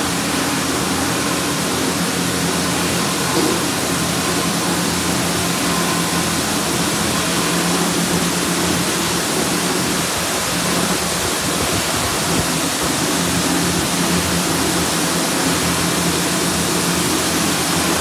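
Ryko SoftGloss Maxx 3 gantry car wash spraying a vehicle with high-pressure water in its touch-free mode: a steady hiss of spray with a low hum from the machine underneath.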